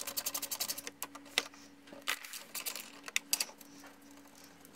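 Hand ratchet with an extension clicking as it backs out a hood-latch screw: a fast run of clicks in the first second, then a few shorter spurts.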